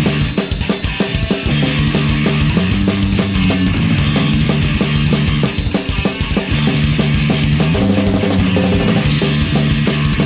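Punk band playing live without vocals: fast pounding drums with cymbals and snare over distorted guitar and bass riffing.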